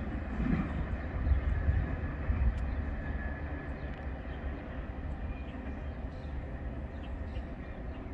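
A freight train of empty ethanol tank cars rumbling along the rails as it moves away, slowly fading.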